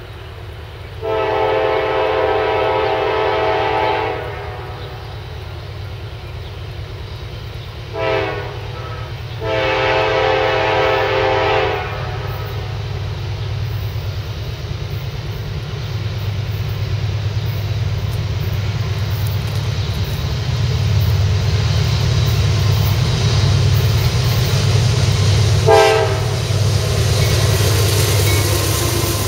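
Diesel freight locomotive's multi-note horn sounding as the train approaches: a long blast about a second in, a short toot, a second long blast, then a short toot near the end. Underneath, the low rumble of the locomotives' diesel engines grows steadily louder as the train closes in.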